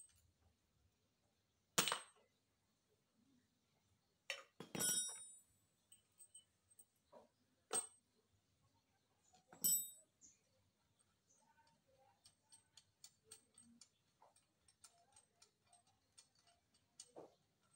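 Metal hand tools and parts clinking against a Mitsubishi Minicab engine's cylinder head as it is taken apart by hand: four sharp, ringing metallic clinks spread over the first ten seconds, then a run of light ticks, about two or three a second, over the last several seconds.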